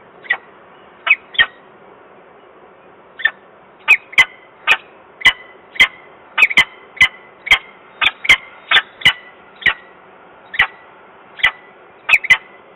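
Peregrine falcon calling: a series of short, sharp, harsh calls. A few come early, then after a brief pause they repeat at about two a second, spacing out again towards the end.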